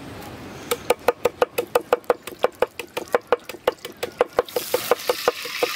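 A large knife chopping fast on a wooden board: even knocks, about six a second, each with a short ring. A steady hiss comes up under the chopping near the end.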